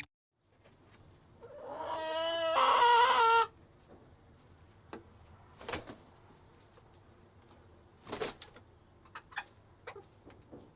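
A rooster crowing once, a loud call about two seconds long whose pitch steps up partway through and then holds. A few short, quieter sounds follow.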